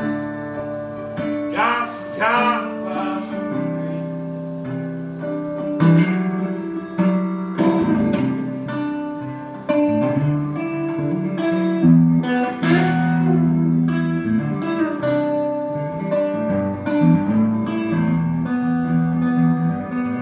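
Acoustic guitar playing live, with chords strummed and notes picked in a steady flow.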